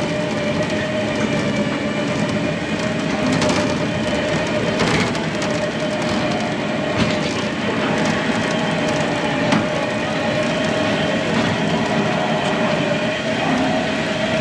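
Machinery running steadily: an even, slightly wavering whine over continuous rattling, with a few sharp clicks.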